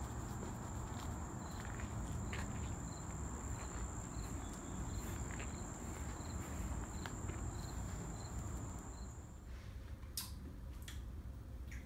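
Evening insects calling: a steady high-pitched drone with a short chirp repeating about every two-thirds of a second, over a low outdoor rumble. It cuts off about nine and a half seconds in, leaving quiet indoor room tone with a few faint clicks.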